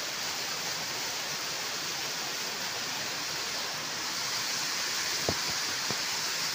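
Steady rushing hiss of a waterfall, with two light clicks near the end.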